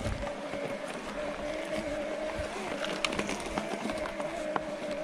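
Brose S-Mag mid-drive motor of a Specialized Turbo Levo e-mountain bike whining steadily while riding, a newly fitted replacement for a defective unit. Its pitch wavers slightly over tyre and wind noise, with scattered clicks and rattles from the bike.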